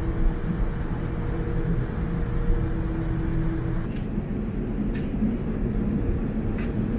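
Steady low rumble of a Boeing 787 airliner's cabin during pushback, with a steady hum that stops about four seconds in. After that the cabin rumble carries on with a few light clicks.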